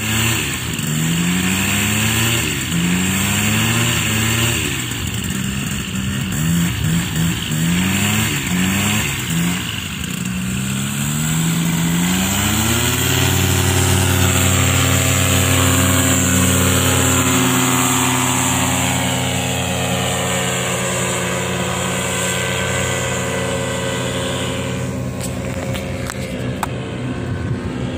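Backpack paramotor engine and propeller, revved up and down in repeated throttle blips, then opened up to steady full power about twelve seconds in for the takeoff run. The pitch drifts slowly lower in the last part as the paramotor climbs away.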